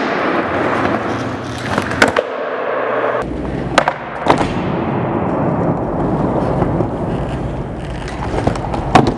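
Skateboard wheels rolling on a concrete skatepark floor, with sharp clacks of the boards hitting a few times: around two seconds in, twice near four seconds, and near the end.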